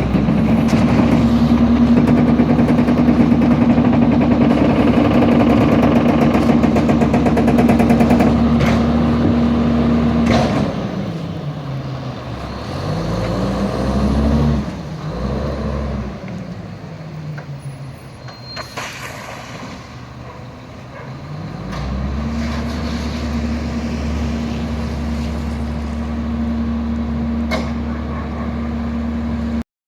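Diesel garbage truck engine held at a steady raised speed for about ten seconds, then falling and rising in pitch, then held steady again from about 22 seconds in. It cuts off suddenly just before the end.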